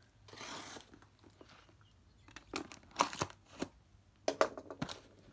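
A plastic postal satchel crinkling and tearing as it is cut open with a box cutter. A soft rustle comes first, then two runs of sharp crackles and snaps.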